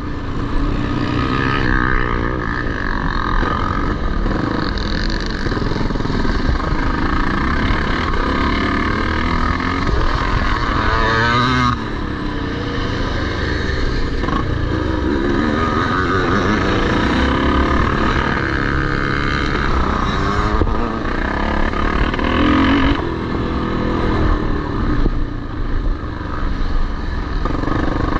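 Several vintage motocross motorcycles racing, their engines revving up and down as the bikes accelerate and pass, with overlapping rising and falling engine notes.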